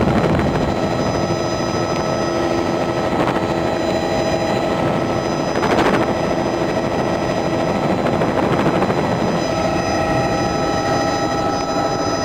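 Helicopter in flight: a steady turbine whine over the rapid beat of the rotor blades. The whine grows stronger about ten seconds in.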